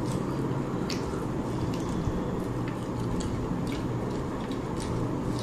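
Wet clicks and squishes of eating by hand: rice and fish curry being mixed and chewed, with lip smacks, over a steady background noise.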